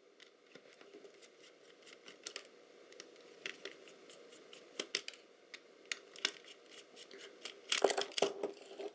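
Small screwdriver turning out a tiny screw on a Lomo LC-A camera, giving sparse light clicks and scrapes, with a louder burst of clicks and handling clatter a little before the end.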